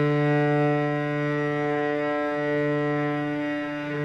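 Acoustic cello bowed in one long, slow stroke, sounding a single low note held steady for several seconds. It is a practice stroke meant to let the arm's weight, not pressing, make the tone.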